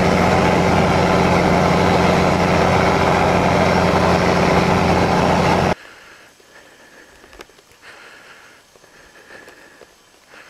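Snowcat's diesel engine running steadily under heavy wind noise, heard from aboard the cat. It cuts off suddenly about six seconds in, leaving only faint noise from riders moving through deep powder snow.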